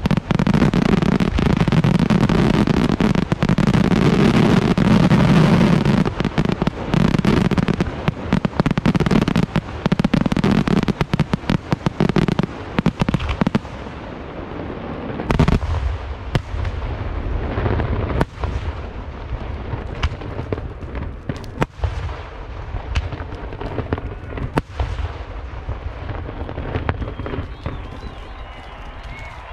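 Closing barrage of an aerial fireworks show by Lieto Carmine e Figli: a dense, continuous volley of shell bursts and crackling for about the first thirteen seconds. It then thins to single loud bangs a second or two apart, which grow fainter toward the end.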